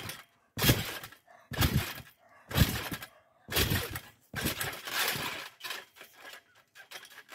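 Trampoline bouncing: the mat and springs thump and jangle once a second on each landing, four or five bounces in a row. About four and a half seconds in comes a longer, heavier landing from a front flip, followed by a few light clicks and rattles as the mat settles.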